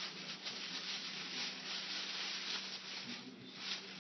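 Tissue paper rustling and crinkling continuously as a gift is unwrapped by hand.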